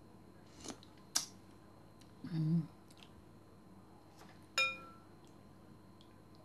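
Metal spoon knocking against a ceramic soup bowl while soup is being eaten: a couple of light clicks, then one clear ringing clink about four and a half seconds in.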